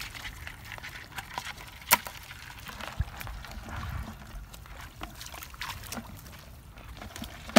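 Hands groping in shallow muddy water: small splashes and trickles, with a few sharp clicks or knocks, the loudest about two seconds in.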